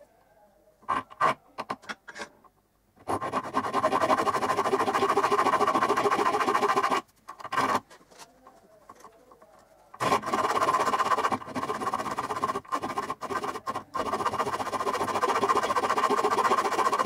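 Hand hacksaw cutting through a metal block clamped in a vise, with continuous back-and-forth rasping strokes. A few light clicks come first; sawing starts about three seconds in, stops for about three seconds near the middle, then resumes.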